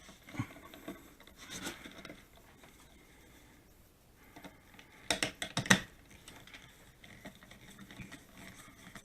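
Small scrapes and rubs with scattered clicks as a Wi-Fi wall switch and its mounting screws are worked into the wall box, with a quick cluster of sharp clicks and knocks about five seconds in.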